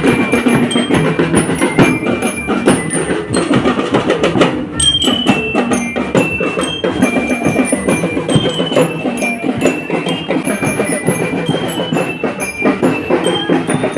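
Drum and lyre marching band playing: drums keep a dense, steady beat while bell lyres play a high melody of short ringing notes.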